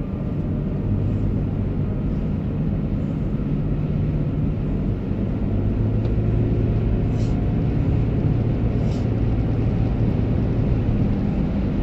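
Steady engine and tyre noise inside a moving car's cabin, a low hum over road rumble.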